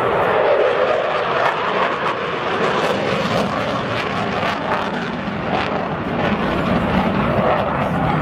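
Eurofighter Typhoon's twin EJ200 turbofan jet engines as the jet flies its display: a loud, steady jet roar with sharp crackles now and then.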